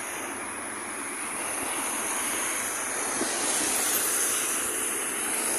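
Steady hiss of car tyres on a wet, flooded road, swelling to a peak about four seconds in as a vehicle passes close by.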